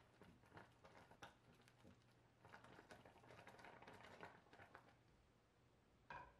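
Very faint, irregular popping and bubbling of strawberries simmering in a saucepan. A brief, slightly louder sound comes near the end.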